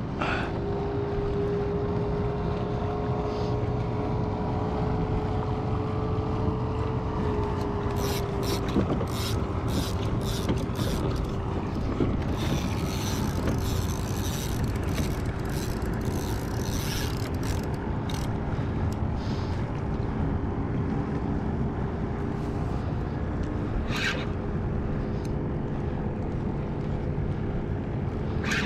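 Spinning reel working under the load of a big jack crevalle: a steady whirr from the reel, with bursts of ratcheting clicks through the middle and once more near the end as line is cranked in and the drag gives.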